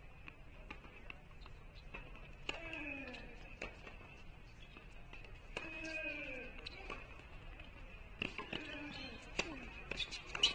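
Tennis balls bouncing on a hard court and being struck by rackets: scattered sharp pops, the loudest near the end as a rally starts. Voices call out three times in between, over a faint steady high hum.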